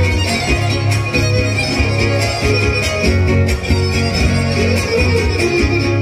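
Son huasteco (huapango) played by a string trio: a violin melody over the rhythmic strumming of a jarana huasteca and the deeper huapanguera guitar.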